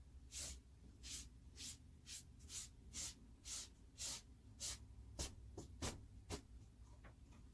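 Rhythmic cleaning strokes, about two a second, each a short hissing scrape, with a few sharper clicks near the end.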